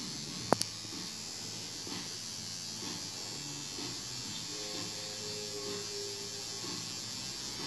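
Steady electric buzz from a Hobbyking ignition tester pulsing a gas-engine ignition module while the simulated engine speed is dialed up from about 4,900 to 6,700 RPM. Two sharp clicks about half a second in.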